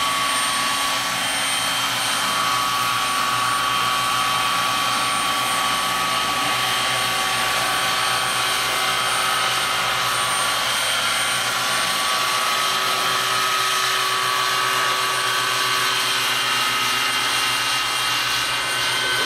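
Giant-scale Vario Eurocopter EC135 model helicopter in flight: a steady high whine from its drive over the rush of its main rotor and ducted tail rotor, shifting slightly in pitch now and then.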